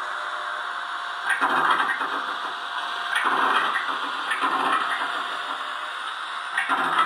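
Steam-locomotive sound effects from a garden-railway digital sound decoder, played through a small Visaton FRS 7 loudspeaker: a steady steam hiss with four slow, unevenly spaced chuffs of steam about one to two seconds apart.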